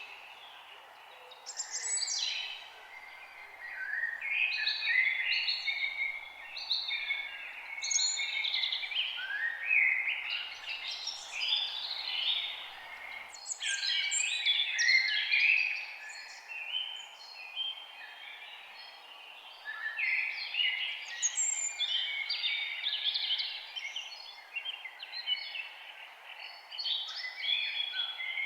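Several songbirds singing at once in a forest, with quick chirps and warbled phrases overlapping throughout. A steady low background hiss runs underneath.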